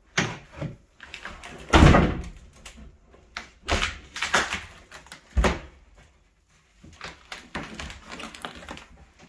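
Particleboard kitchen countertop being wrenched loose from the base cabinets by hand: a series of sharp cracks and thumps, the loudest about two seconds in, then quicker, lighter knocks near the end.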